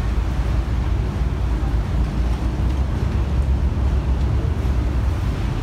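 Tour boat's engine running with a steady low rumble, mixed with wind buffeting the microphone.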